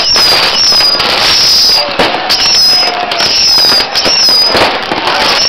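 Dense New Year's fireworks: many whistling rockets going up, their high whistles falling slightly in pitch at about two a second, over steady crackling and scattered bangs.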